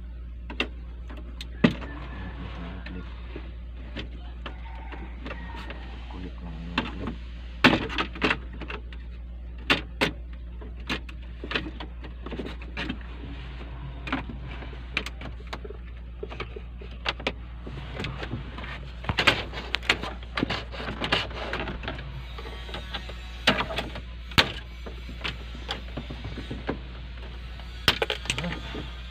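Irregular sharp clicks, taps and knocks of hard plastic dashboard trim and control panel being handled and pried, spaced unevenly and coming thickest in the second half, over a steady low hum.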